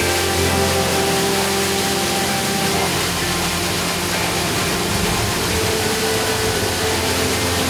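Water rushing from a wooden chute onto the paddles of a horizontal mill wheel, splashing steadily as it drives the mill. Held tones sound over the water and shift about three seconds in and again past five seconds.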